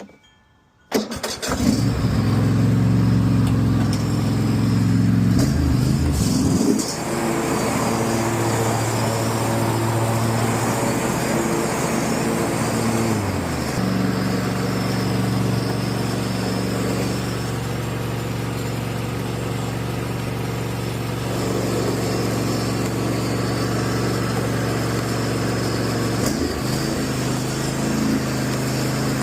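Cub Cadet XT1 riding mower engine starting about a second in, then running steadily, its speed shifting up or down a few times.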